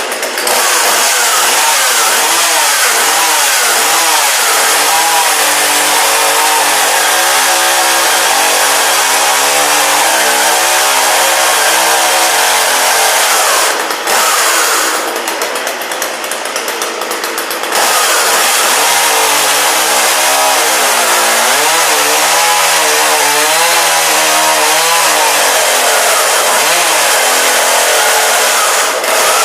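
Chainsaw running on a test run after being reassembled, its engine speed rising and falling as the throttle is worked, with a short drop about halfway through.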